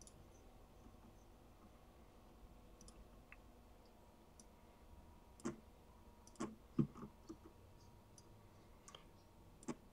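Scattered computer mouse clicks over faint room tone, single short clicks at uneven intervals, the loudest a little past halfway through.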